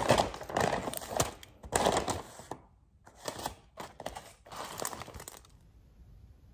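Paper takeout bag rustling, then aluminium foil crinkling as foil-wrapped tacos are unwrapped by hand, in two spells with a short pause between; the crinkling stops a little over five seconds in.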